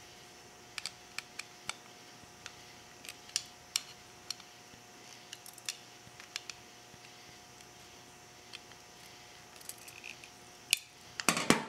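Screwdriver driving the float-bowl screws into a small aluminium motorcycle carburetor: scattered light metallic clicks and ticks as the tip seats and turns in the screw heads, with a louder clatter near the end.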